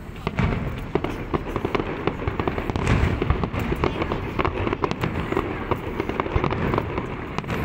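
Fireworks display: a dense, continuous string of sharp pops and crackles from bursting shells, with deep booms underneath.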